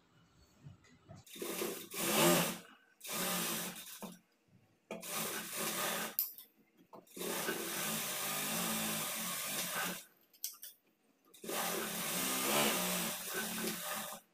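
Sewing machine stitching a blouse's side seam in five runs, each one to three seconds long, stopping briefly between them as the fabric is guided through.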